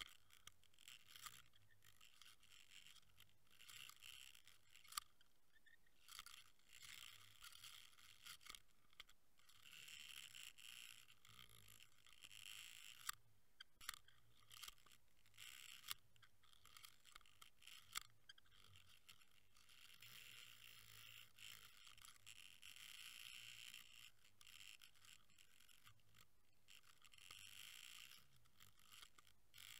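Near silence: faint underwater noise picked up by a submerged camera, a soft hiss that swells and fades, with scattered sharp clicks.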